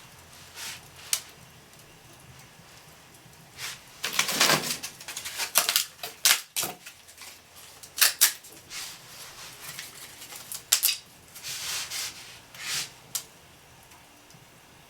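Thin fruit-crate wood crackling and clattering in a fireplace: irregular sharp cracks and knocks, busiest between about four and seven seconds in, with a few more near the end.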